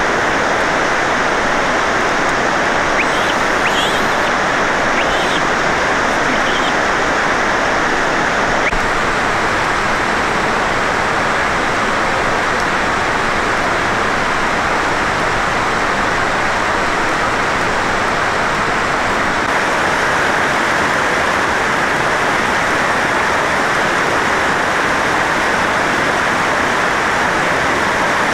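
Steady rush of flowing water, an even hiss-like noise that holds at the same level throughout.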